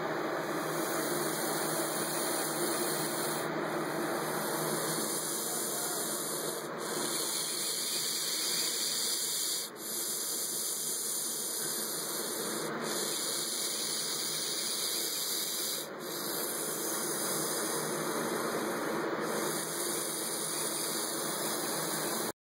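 Western hognose snake hissing in long, steady exhalations, one after another, each broken by a brief pause about every three seconds as it draws breath. The hiss is a defensive threat display.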